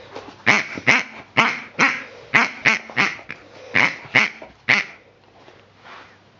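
Pink rubber pig squeaky toy squeezed over and over: about ten short, sharp squeaks, a couple a second, stopping about five seconds in.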